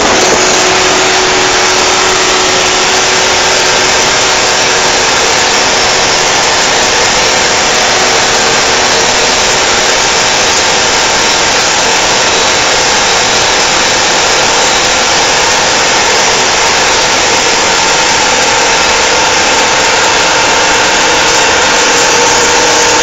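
Mercedes-Benz 911 timber truck's diesel engine running steadily while under way, a loud, even drone with a faint engine hum and little change throughout.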